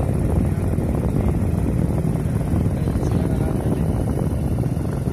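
Steady rumble of wind buffeting the microphone of a moving vehicle, with the vehicle's running noise underneath.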